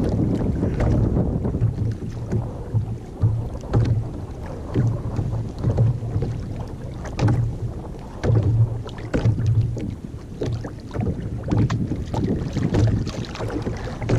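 Wind gusting across the microphone in uneven low rumbles, with water lapping and slapping against a sit-on-top kayak's hull in short sharp splashes.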